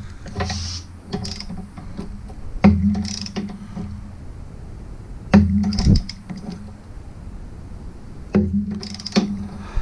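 Socket wrench tightening a sway bar mounting bolt on a Jeep TJ: three sharp metallic clicks about three seconds apart, with smaller clicks between. Each of the three is followed by a low ringing hum that fades over about a second.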